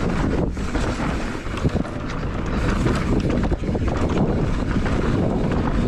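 Santa Cruz Nomad 2022 mountain bike descending a dirt trail at speed: wind rushing over the action-camera microphone, tyres rumbling over the ground and the bike clattering over bumps with many short knocks.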